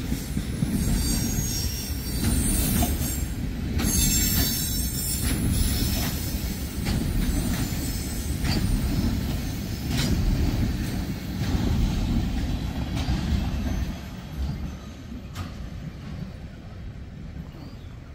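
Tank cars of a CSX freight train rolling past: a steady rumble of steel wheels on rail with occasional clicks over the rail joints, and a high wheel squeal about two to five seconds in. The sound fades after about fourteen seconds as the end of the train moves away.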